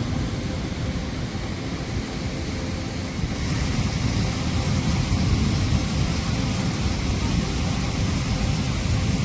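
Waterfall's rushing water as a steady roar, with low, unsteady rumbling from wind on the microphone; the higher hiss of the water grows louder about three seconds in.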